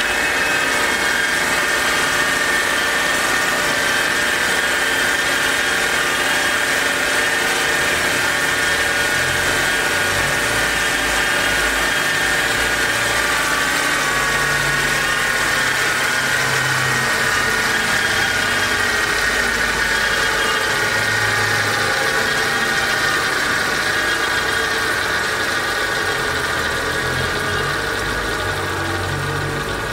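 Brierley ZB-50 drill grinder running with no work in it, its electric motors and grinding wheel giving a steady hum with a high whine. It grows slightly quieter near the end.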